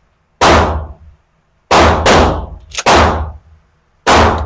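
A rapid, irregular string of about six loud gunshots on a firing range, some in quick pairs, each followed by a short echoing tail.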